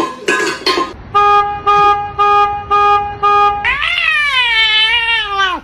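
A run of five short, steady beeps, then a cat's long, wavering yowl that rises and falls in pitch and cuts off near the end.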